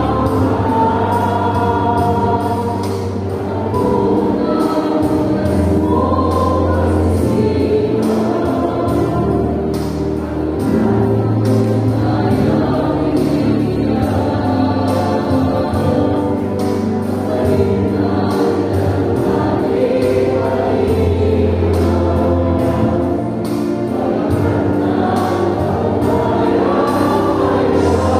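A large group singing together in unison with instrumental accompaniment, the held bass notes changing every few seconds.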